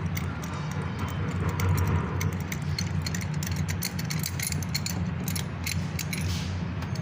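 Ratchet with a 16 mm spark plug socket clicking in quick runs as a spark plug is unscrewed, over a steady low hum.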